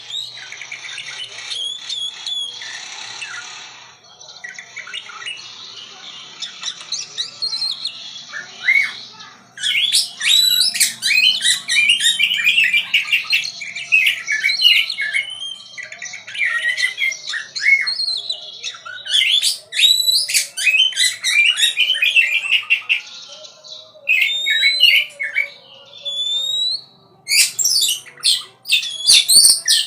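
A songbird singing a fast, varied song of chirps and harsh squawks. It is quieter for the first several seconds, then loud from about ten seconds in, in phrases broken by short pauses.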